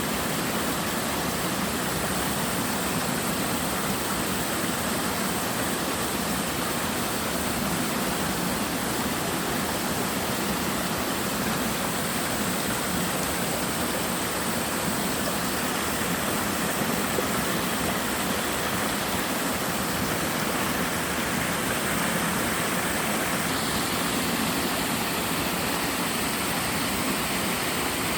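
Two-tier twin waterfall cascading into a mountain stream: a steady, even rush of falling water.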